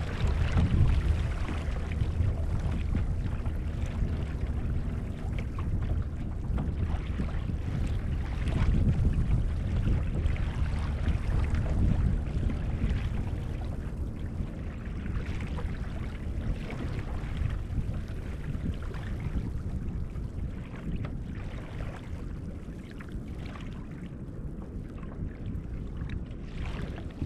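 Wind rumbling on the microphone, with water splashing and lapping against the hull of a Hobie Outback kayak under sail; it grows quieter over the second half.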